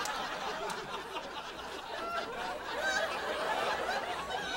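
Scattered laughter and chuckling.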